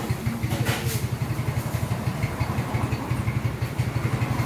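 An engine idling: a steady low rumble with rapid, even pulses.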